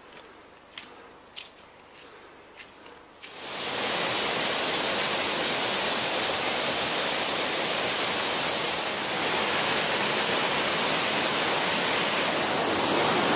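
A few light taps, then about three seconds in the loud, steady rush of a waterfall and stream cascading over rocks takes over.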